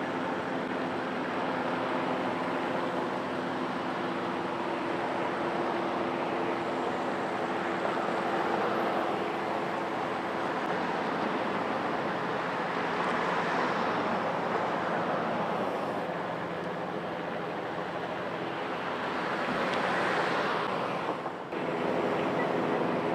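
Light single-engine turbine helicopter running steadily: a whooshing rotor rush over a held turbine drone. It swells louder about twenty seconds in, then drops away for an instant before picking up again.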